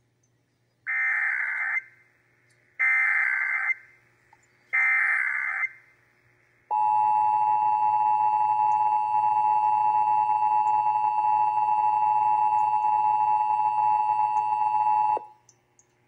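Emergency Alert System test from an AM radio's speaker: three short warbling SAME data bursts of the digital header, then the steady two-tone attention signal held for about eight seconds before it cuts off abruptly.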